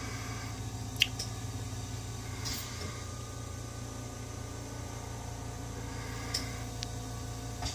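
Room tone: a steady low hum with faint steady tones over it, and a single small click about a second in.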